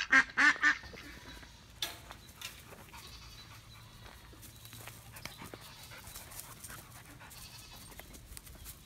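Two dogs, a livestock guardian dog and a smaller dog, panting faintly and moving about, with scattered light clicks of footfalls. A short pitched call is heard at the very start.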